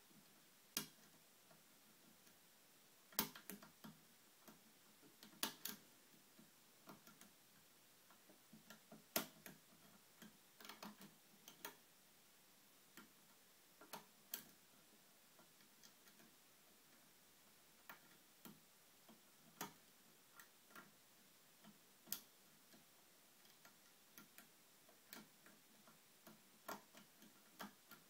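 Small, sharp, irregularly spaced clicks from a lock pick and tension wrench working the pins of a brass five-pin euro cylinder during single-pin picking.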